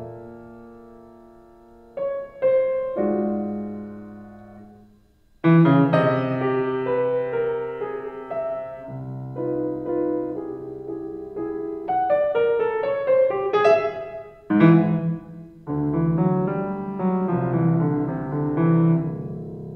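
Piano playing alone. A chord rings and dies away, and a softer chord at about two seconds fades almost to nothing. From about five and a half seconds come loud, full chords, with figures climbing upward a little past the middle.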